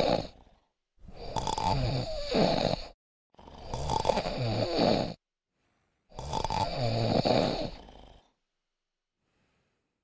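A person snoring: the end of one snore, then three long snores of about two seconds each in close succession. The snoring stops about eight seconds in.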